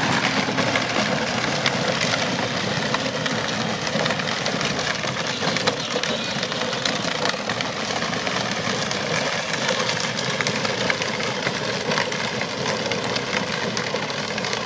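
Children's battery-powered ride-on ATV driving along a gravel path: a steady motor-and-gearbox drone, with the hard plastic wheels crackling over the gravel.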